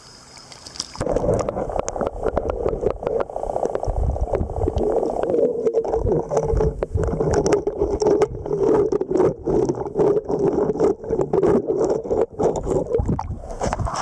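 Muffled underwater sound picked up by a camera held under the surface of a shallow creek: a steady low drone with many quick clicks and knocks of handling and stones. It starts about a second in and stops as the camera comes back up near the end.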